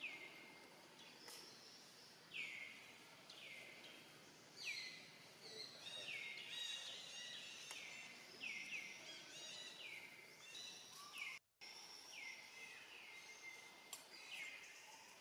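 Faint outdoor background with a bird calling over and over: short falling whistled notes about once a second, sometimes overlapping as if more than one bird is calling.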